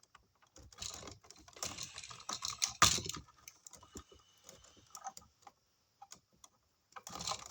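Wire strippers working 14-gauge electrical wire: a run of small clicks and scrapes as the jaws bite and the insulation is pulled off, with one sharp click about three seconds in and more handling near the end.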